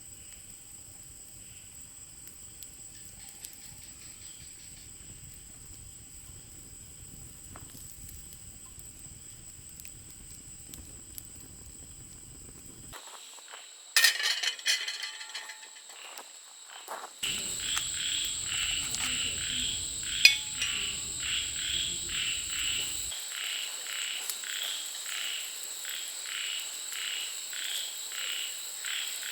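Night insect chorus in a forest: a steady high-pitched trill, joined partway through by a rhythmic chirping about twice a second. A short burst of clattering comes about 14 seconds in.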